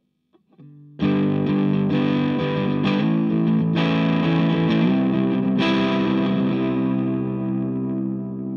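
Overdriven electric guitar chords, a Gibson Classic 2015 through a TS808 overdrive, a Cort CMV15H tube head and a pine cabinet with a Celestion Seventy 80 speaker. A few quiet notes, then a loud chord about a second in, re-struck several times and left to ring and fade near the end.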